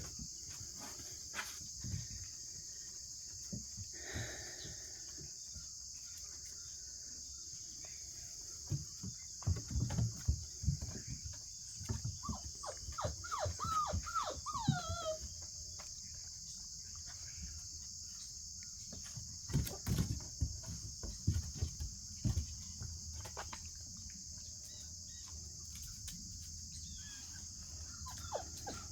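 Steady high-pitched chorus of insects, likely crickets, with scattered low thumps and knocks. About halfway through, a quick run of a dozen or so short high calls, the last ones falling in pitch.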